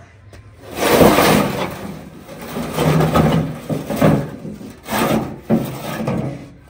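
Rusty metal wheelbarrow loaded with bricks being tipped up, the bricks sliding out and dropping onto the ground, in several loud stretches of knocking and scraping.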